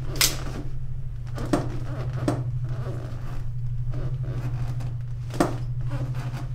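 A steady low hum, with a few sharp knocks or clicks over it: one just after the start, two more within the next couple of seconds, and another a little past the middle.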